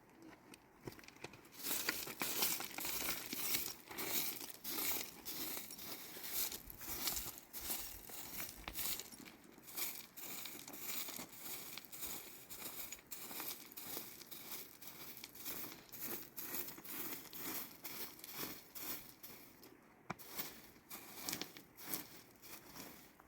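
Irregular rustling and crinkling made up of many quick scratchy strokes, with a short lull near the end.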